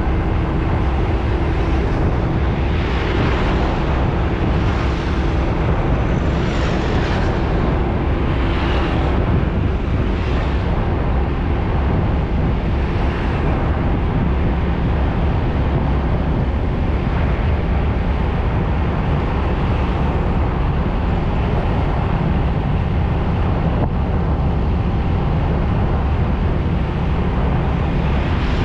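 Road traffic going by: vehicles passing one after another over a constant deep rumble, with a steady hum in the first few seconds.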